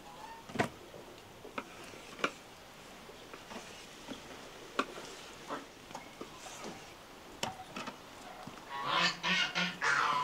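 Scattered light knocks and clicks. Then, near the end, a goose honks several times in quick succession.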